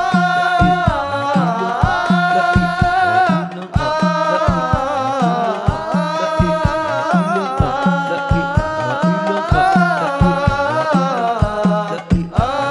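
Islamic devotional song (sholawat): a solo voice sings long, ornamented lines that slide between notes, over an even hand-drum beat and a held low accompanying tone.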